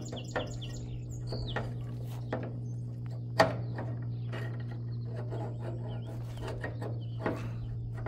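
Metal clicks and knocks from the needle-trip arm and star wheel of a New Holland 67 Hayliner square baler being worked by hand; the loudest is a sharp click about three and a half seconds in. Under it runs a steady low hum, and birds chirp near the start.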